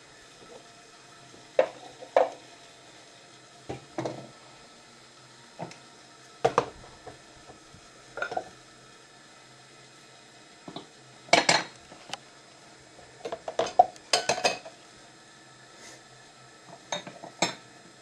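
Dishes and cutlery being handled, clinking and knocking at irregular intervals, with a quick run of louder clinks about two-thirds of the way through.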